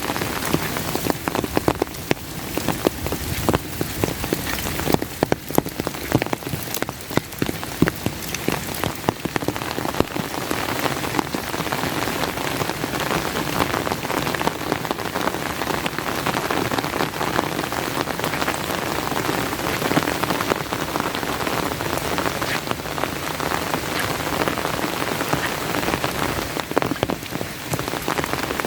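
Steady rain falling, with many sharp close drop ticks, likely on the umbrella held over the phone; the ticks are thickest in the first ten seconds.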